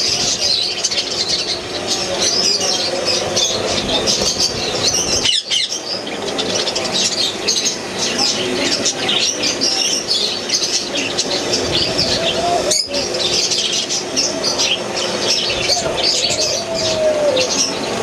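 A flock of caged budgerigars and ring-necked parakeets chattering, many high chirps and warbles overlapping without pause, with some lower, drawn-out calls joining in the last few seconds.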